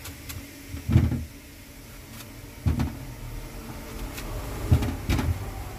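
Dull knocks and light clicks from a kitchen knife and peeled green plantains being handled over a plate in a stainless-steel sink. There are four knocks: about a second in, near three seconds, and two close together near five seconds.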